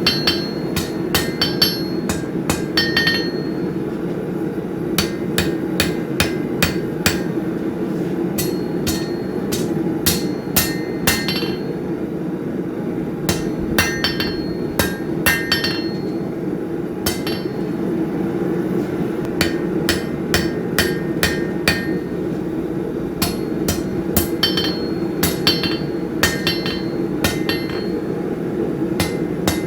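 Hammer forging hot steel on an anvil, squaring off bar stock: runs of quick blows, several a second, with short pauses between, many blows leaving a brief ring from the anvil. A steady low hum runs underneath.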